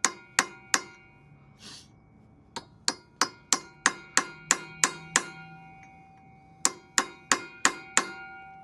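Hammer tapping a punch against the collar of the driveshaft's 24 mm stake nut to restake it. The sharp metallic strikes ring, coming in three runs of quick taps at about three a second.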